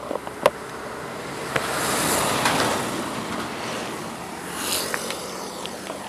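Road and wind noise while riding a bicycle, swelling to a peak about two seconds in and easing off as a motor vehicle passes, with a sharp click just under a second in.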